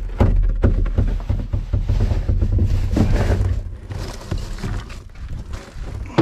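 Wind buffeting the microphone with a low rumble, mixed with irregular rustling and knocks as rubbish is rummaged through in a bin.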